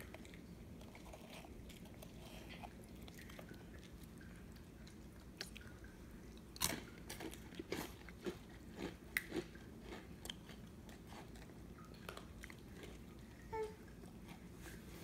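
Crunching and chewing of crisp biscuit sticks, with a cluster of sharp crunches in the middle and a few scattered bites after.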